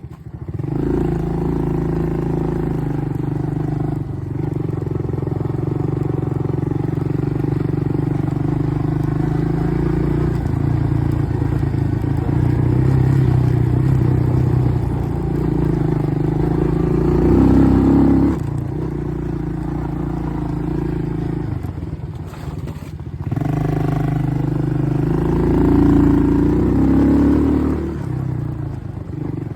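ATV engine running steadily while riding, with the throttle opened up twice, around the middle and again near the end, and the engine briefly dropping away between.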